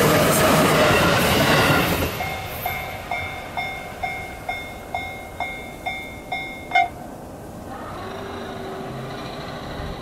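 E353 series limited express train running past at speed until about two seconds in. Then the railroad crossing's warning bell rings about twice a second and stops about seven seconds in as the crossing clears.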